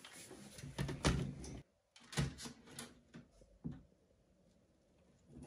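Knocks and clacks of a MacBook laptop being handled on a desk: a quick cluster about a second in, then a few lighter taps and clicks.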